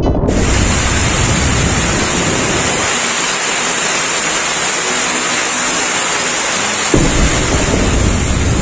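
Thunderstorm: heavy rain with a steady hiss throughout. Thunder rumbles at the start and dies down, then a sharp thunderclap breaks about seven seconds in and rumbles on.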